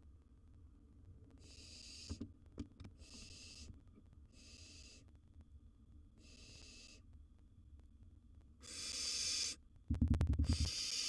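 Barn owl nestlings hissing their food-begging calls: six breathy hisses about a second apart, the last two louder, with thumps of the owlets shuffling in the wooden nest box about ten seconds in.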